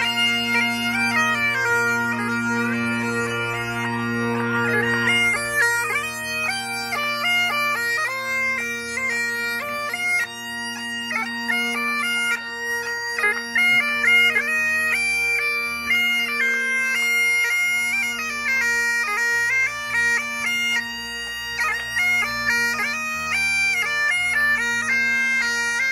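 Scottish bagpipes playing a tune: a melody on the chanter over steady, unbroken drones.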